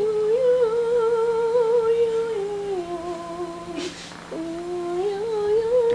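A person humming a slow, wavering tune in held notes, pausing for a breath about four seconds in before humming on.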